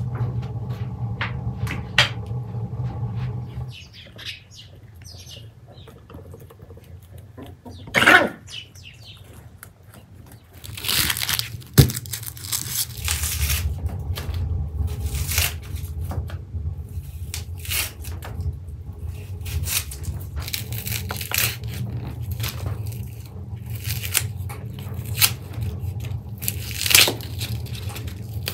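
Onions being peeled and cut with a kitchen knife on a wooden board: dry papery skins crackling and tearing, with scattered knife clicks and taps. A steady low hum runs underneath.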